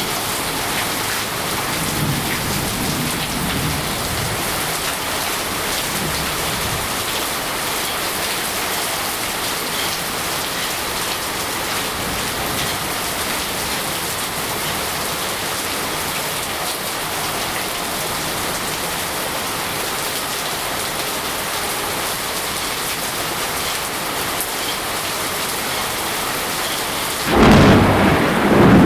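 Steady rain falling, with low rumbles of thunder a few seconds in and a loud burst of thunder near the end.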